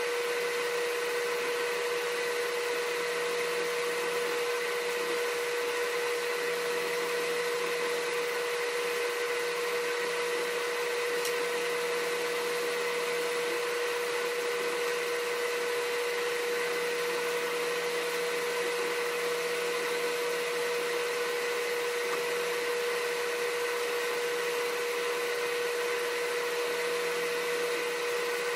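A small motor or fan running steadily: an even whir and hiss with one constant tone that never changes.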